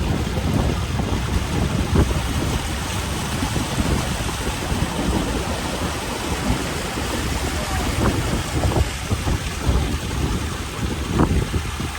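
Boat motor running at low speed under steady wind buffeting the microphone, with irregular low gusts throughout.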